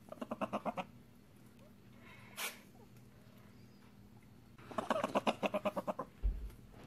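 Prairie dog pup chattering: two runs of quick pitched chirps, about ten a second, with a short breathy sound between them and a soft low bump near the end. The owner reads this call as a contented greeting, a request to be picked up and held.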